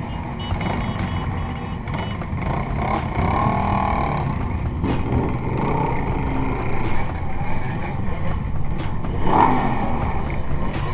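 Several motorcycle engines running at low speed in a slow group ride, heard from one of the moving bikes, a steady low rumble. Brief pitched sounds stand out about three seconds in and again near the end.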